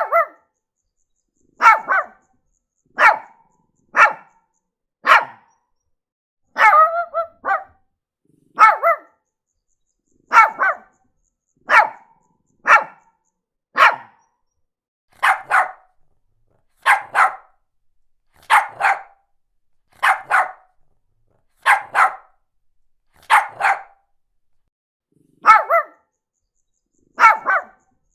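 Small Shih Tzu dog barking: short, sharp, high-pitched barks, one or two at a time, repeating about every second and a half.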